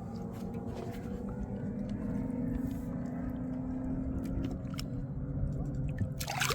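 A boat motor running steadily, its pitch wavering slightly. A brief rushing noise comes near the end.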